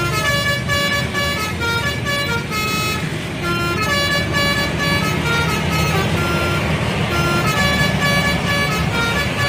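Indonesian bus telolet horn, a set of electrically switched air-horn trumpets, playing a quick tune of short and held notes that step up and down in pitch. Underneath is a low engine and traffic rumble.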